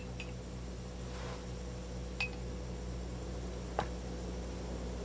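Quiet, steady room hum with a few faint, short clicks spread across the moment, one of them sharper near the end.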